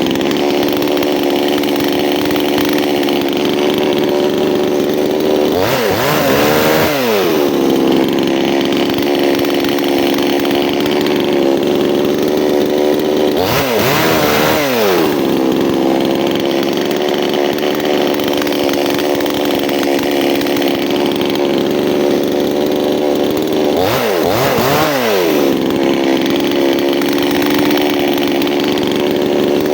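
Two-stroke chainsaw running at high revs while cutting wood. Three times its engine speed falls sharply and climbs back up.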